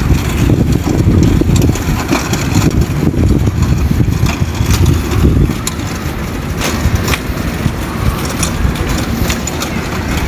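Hard wheels of a loaded flatbed hand cart rolling over asphalt, a continuous rough rumble with scattered rattling clicks.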